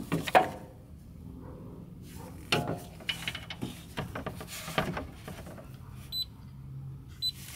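Hand tools clinking and knocking against metal in a scattered run of sharp hits while bolts on the engine are worked. Two short high beeps come near the end.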